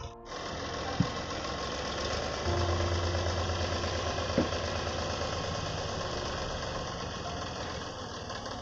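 Sonalika farm tractor's diesel engine running as it pulls a loaded trailer, getting louder about two and a half seconds in. Two sharp knocks are heard, about a second in and again about four seconds in.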